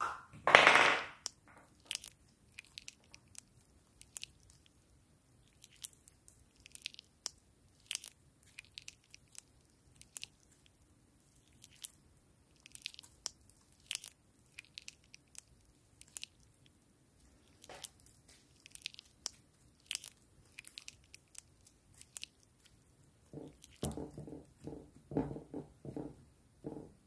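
Butter slime being stretched and squeezed by hand, making soft crackles and clicks, with a louder, longer squish in the first second. Near the end, a run of thicker, sticky squelches as two slimes are kneaded together in a glass dish.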